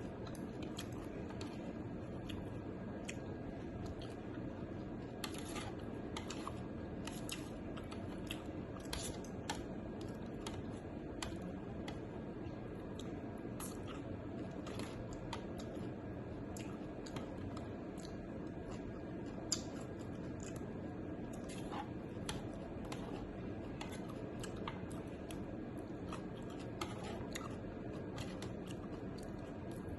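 A person chewing and eating, with frequent small irregular clicks over a steady low background noise.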